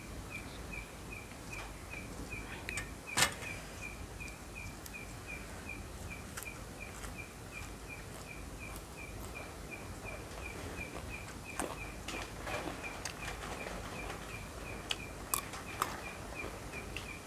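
A high chirp at one pitch repeats evenly about three times a second throughout. A few sharp clicks and crunches sound over it, the loudest about three seconds in and smaller ones near the end.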